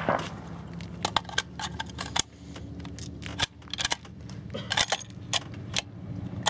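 Irregular metallic clicks and rattles of a rifle's action being worked by hand, the sound of a shooter trying to clear a double feed. A steady low hum runs underneath.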